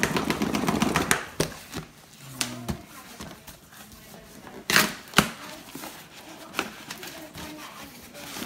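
Cardboard being handled: the flaps of a shipping box and the boxed drone inside rustle and scrape against each other, with scattered clicks and knocks. A dense scraping stretch opens the sound, and two loud sharp knocks about half a second apart come a little past halfway through.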